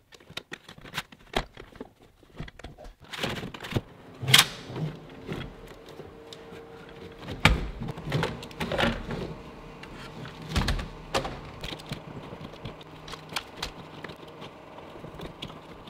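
Irregular clicks, knocks and rubbing from a wiring harness being handled and fed through a pickup truck's engine bay, with sharper knocks about four, seven and a half and ten and a half seconds in.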